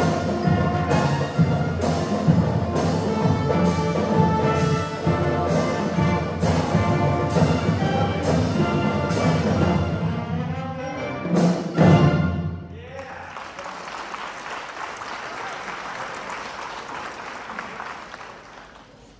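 High school band (brass with percussion) playing a piece to its end, with a struck beat about once a second; the music slides in pitch, hits a loud final chord and stops about twelve and a half seconds in. Applause follows and fades.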